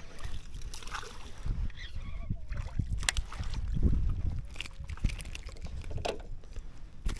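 Handling noise of a fishing cast from a plastic sit-on-top kayak: small clicks and knocks of rod, reel and hull over a low rumble of wind on the microphone, which swells about four seconds in as the lure is cast.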